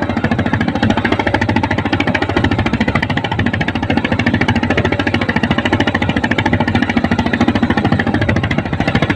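Engine of a small wooden fishing boat running steadily under way, a loud, rapid, even chugging, with water rushing and splashing along the hull.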